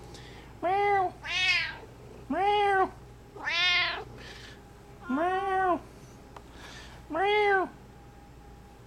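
Siamese cats meowing, six drawn-out meows in turn, each rising and then falling in pitch; two of them are higher-pitched than the others.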